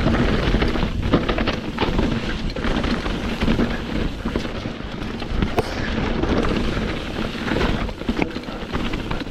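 Mountain bike rattling down a rocky trail at speed: tyres crunching over rock, with many small knocks and clatters from the frame and chain over a continuous low rumble.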